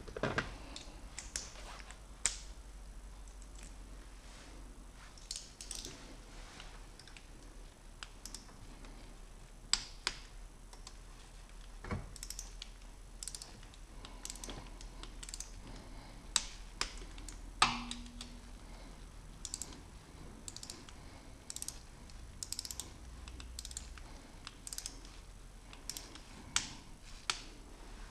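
Ratchet and click-type torque wrench at work: short runs of ratcheting and sharp single clicks at irregular intervals, with light metal tool knocks, as the camshaft pulley bolts on a Renault 1.5 dCi timing belt are tightened to 14 Nm.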